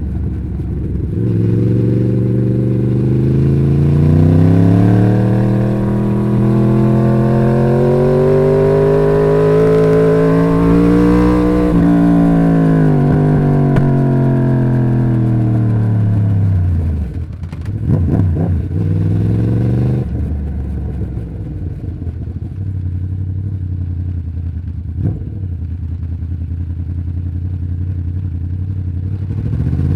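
Crossplane inline-four engine of a 2011 Yamaha YZF-R1 through its stock exhaust: the engine note climbs steadily for about ten seconds, falls away over the next five, turns ragged for a few seconds, then holds a steady low note before starting to climb again near the end.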